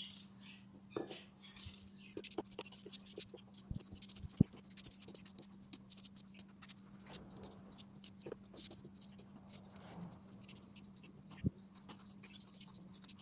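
Kitchen knife cutting small chunks off an unpeeled cucumber held in the hand, the pieces dropping into a plastic mini-chopper bowl: a run of light clicks and taps, with two sharper knocks, one about four seconds in and one near the end.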